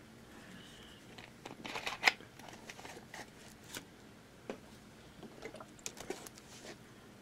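A plastic drink bottle being handled: quiet crinkles and clicks of the bottle, the loudest about two seconds in.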